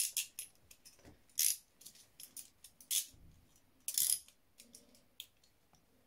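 Steel handcuffs clinking and rattling on the wearer's wrists as the cuffed hands move, in short separate jingles about once a second, a few louder than the rest.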